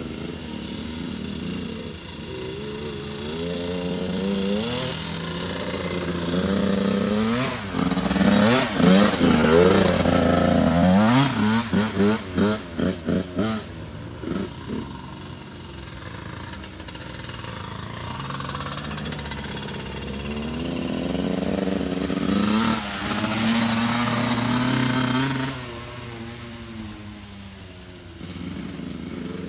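Small dirt bike engines revving up and falling back as the bikes ride past. The loudest pass comes about a third of the way in and ends in a string of short throttle blips, and a second rev rises and cuts back near the end.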